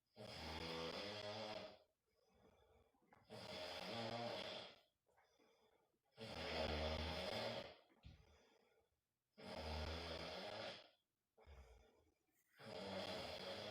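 A man snoring in his sleep: five long snores, each about a second and a half, coming steadily about every three seconds.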